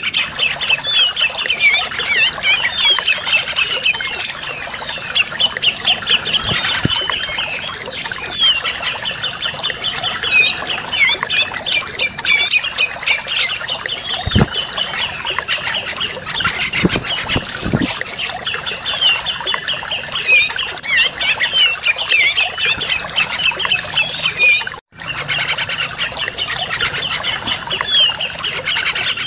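Lure recording of cucak jenggot (grey-cheeked bulbul) song: a dense, unbroken stream of rapid chattering and whistled notes over a steady background hiss. The sound drops out for a split second about four seconds before the end.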